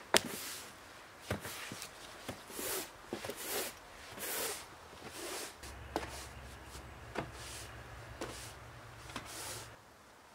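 Footsteps of rubber boots and waders on wooden deck boards, each step with a rustle, about two a second, then a few fainter knocks about a second apart.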